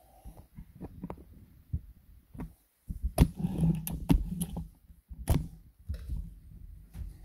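Handling noise from a Gamo Roadster 10X Gen 2 break-barrel spring air rifle being moved and cocked between shots, picked up by a camera mounted on its scope: a run of clicks, knocks and rubbing, with the strongest clunks about three and five seconds in.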